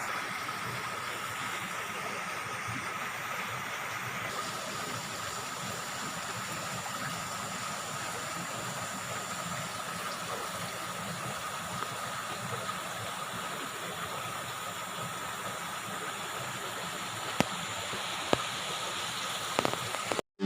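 River water flowing steadily, an even rushing sound, with a few small clicks near the end.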